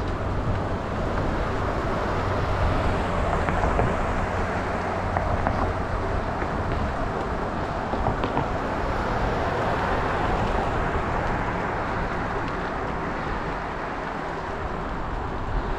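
Steady wind rush and road noise on a head-mounted camera's microphone while riding a bicycle down a wet street, with a low, uneven buffeting underneath.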